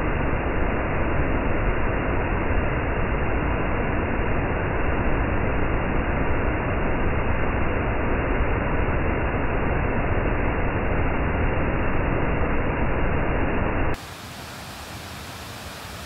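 Water rushing down a cascading waterfall over stepped rock ledges, a loud, steady rush. About 14 seconds in it cuts abruptly to a much quieter, brighter hiss.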